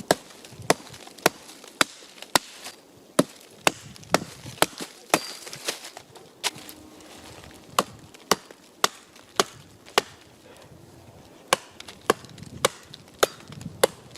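Wood being chopped: sharp strikes at about two a second, in runs with brief pauses between them.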